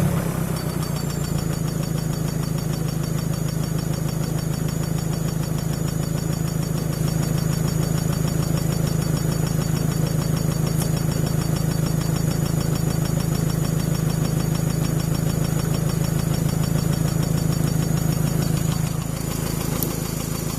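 Volvo S40 T4 engine running steadily at idle, getting a little louder about a third of the way in and dropping back near the end. It carries a strange noise whose cause the owner does not know.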